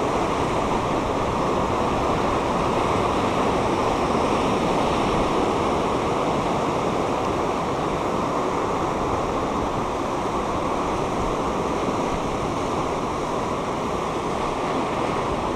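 Ocean surf churning and washing over lava rocks below, a steady rushing noise with no single breaker standing out.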